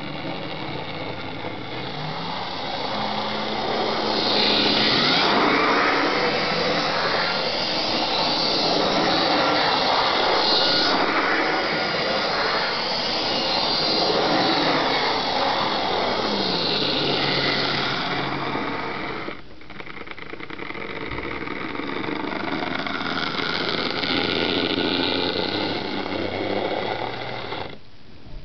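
Lima 00 gauge Class 47 model diesel locomotive running on its track: the electric motor whines and the wheels rattle over the rails. The pitch rises as it speeds up in the first few seconds and falls as it slows about two-thirds of the way through, with a brief dip soon after. The sound cuts off suddenly near the end as the locomotive stops.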